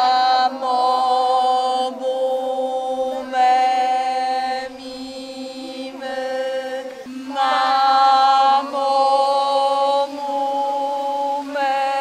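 A woman and a group of children singing a vocal warm-up: long notes held on drawn-out syllables, each about a second long on a steady pitch, with short breaks between them.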